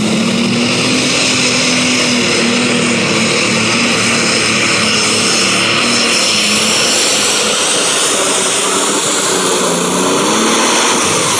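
Super Stock pulling tractor's turbocharged diesel engine running loud and steady at full power under the load of the sled, with a high turbocharger whine over the engine note.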